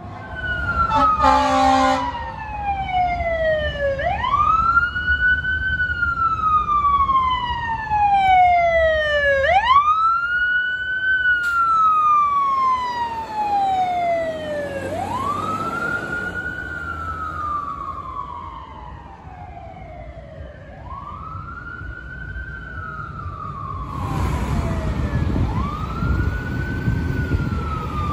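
Fire engine siren on a slow wail, each cycle climbing quickly and sliding slowly back down, repeating about every five and a half seconds. There is a short horn blast about a second in and a low engine and traffic rumble underneath.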